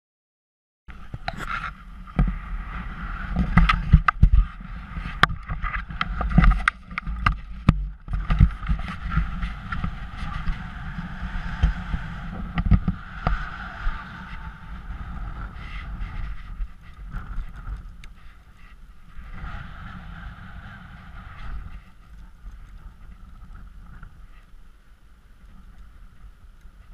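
Wind buffeting the microphone, starting about a second in, with frequent sharp knocks and clatter from the gear being handled in the first half, then settling to a steadier, quieter wind rush.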